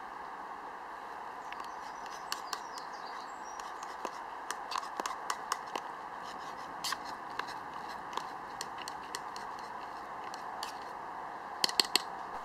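Metal spoon stirring thick porridge in a stainless steel mess tin, with scattered light clinks and scrapes against the tin's sides and three sharper clinks close together near the end.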